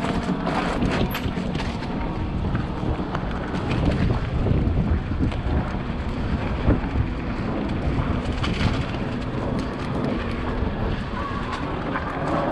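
Wind buffeting the microphone, a steady low rush with scattered clicks and rattles through it.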